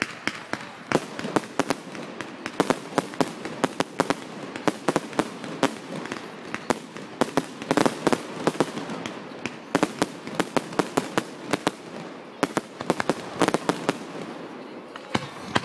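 Fireworks display: a rapid, irregular barrage of sharp bangs and crackles from exploding shells, several a second, thinning out slightly near the end.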